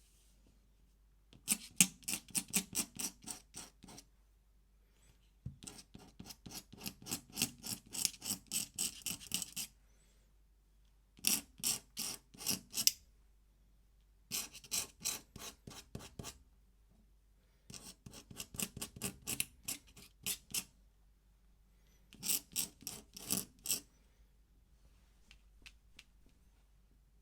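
Pen scratching on paper in quick repeated strokes, about five a second, in six bursts of a few seconds each with short pauses between, then a few faint single ticks near the end.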